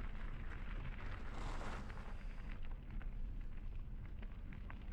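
Mountain bike rolling along a dirt trail, with a steady low wind-and-tyre rumble on the action camera's microphone and small clicks and rattles from the bike. A brief rushing hiss comes about a second and a half in.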